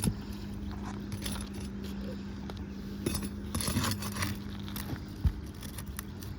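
A flat bar scraping and clicking as it is worked under brittle asphalt shingles to break their seal, the gritty shingles crackling as they lift and tear. A sharp knock about five seconds in.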